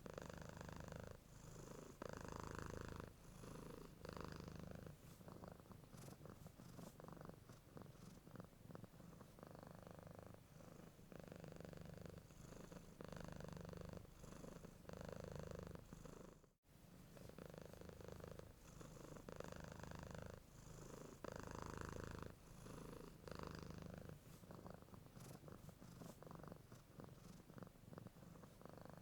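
Domestic cat purring quietly and continuously, swelling and easing with each breath. The purr cuts out for a split second a little past halfway, then carries on.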